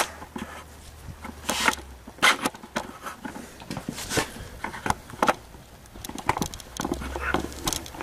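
Scattered light knocks and clicks as a handheld camera is handled and set down on the shop floor, over a low steady hum.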